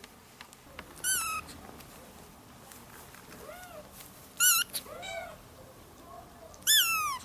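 Kitten mewing: three loud, high-pitched mews about 1, 4.5 and 7 seconds in, the last rising and then falling. Fainter, lower-pitched mews come in between.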